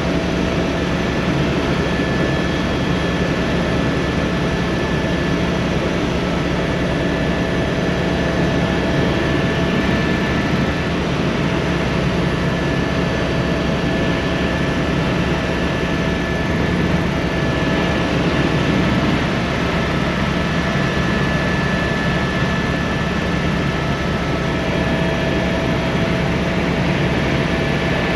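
Helicopter turbine engine and rotor running steadily: a constant loud drone with a few high, steady whining tones on top.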